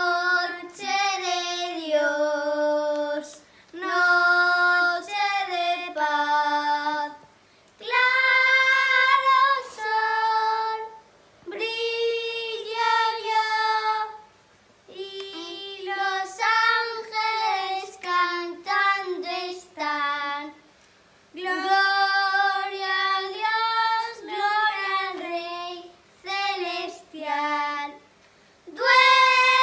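Young boys singing a song without accompaniment, in sung phrases of one to three seconds with short breaths between them.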